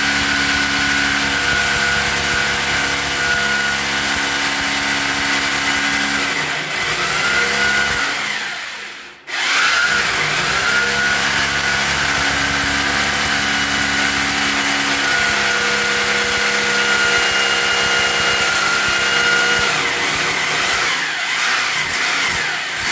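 Electric drill boring fixing holes into a ceramic-tiled wall to mount a washbasin. It runs steadily in two long spells, with a short stop about nine seconds in, then winds down near the end.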